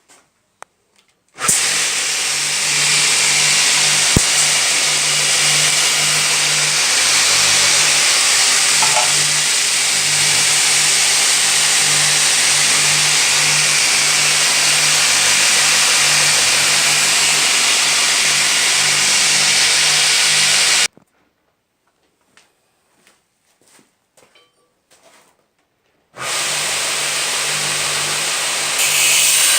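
Homemade belt sander with a 550 W motor and a 75 mm endless abrasive belt running: a loud, steady hiss over a steady motor hum. It starts about a second and a half in and stops abruptly about two-thirds of the way through. A few faint clicks follow, then it starts again near the end and grows louder in the last second or so.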